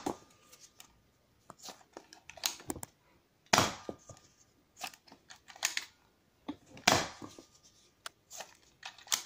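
Small spring-powered Nerf MicroShots Deagle dart pistol firing, a sharp plastic snap about three and a half seconds in and another about seven seconds in. Between the shots come quieter clicks and rattles of the blaster being handled and foam darts being pushed into its barrel.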